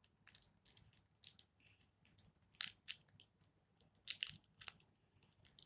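Paper crinkling and crackling in short, irregular bursts as a stuffed paper squishy is handled and pressed closed.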